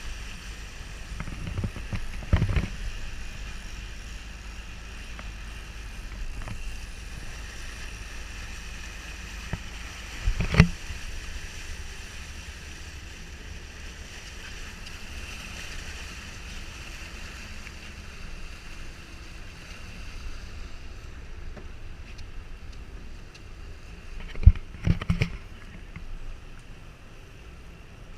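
Steady noise of a fishing boat on the sea: low rumble and hiss from the hull and water. A few sharp knocks come through, the loudest about ten seconds in and another pair near the end.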